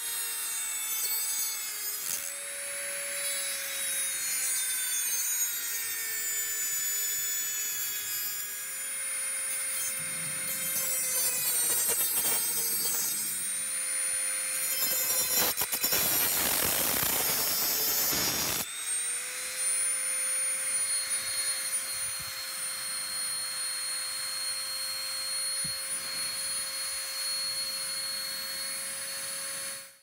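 Handheld Dremel rotary tool with a small abrasive cut-off disc grinding through the thin steel case of a mortise lock: a steady high motor whine over a harsh grinding hiss. The pitch sags as the disc bites into the metal and climbs back as it eases off, with a rougher, louder stretch of grinding about halfway through.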